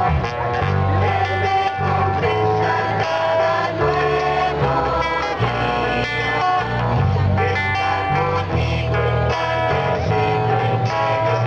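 A youth choir singing a religious song in unison, accompanied by guitars.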